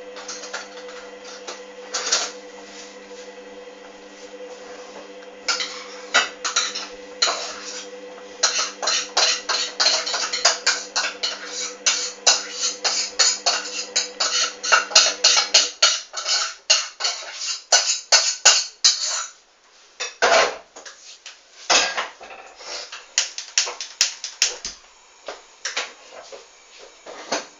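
Hoover Dynamic washing machine on a sensitive wash: its drum turns the load with rapid clicking and clattering over a steady motor hum. The hum stops about halfway through, and the clatter goes on more sparsely.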